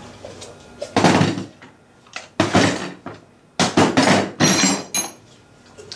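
A handful of sudden knocks and clattering thuds, about five spread over a few seconds, the last ones followed by a brief ringing.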